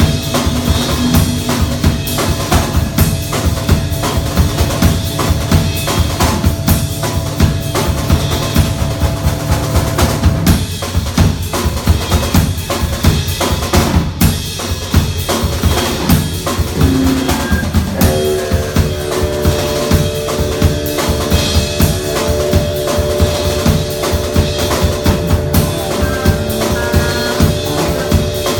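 Live music: fast, dense drumming over sustained droning tones. The held tones drop out about ten seconds in, and a new set of higher tones enters about eighteen seconds in.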